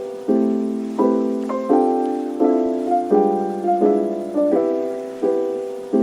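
Background music: a soft piano or electric piano playing sustained chords, struck about every three quarters of a second and left to ring.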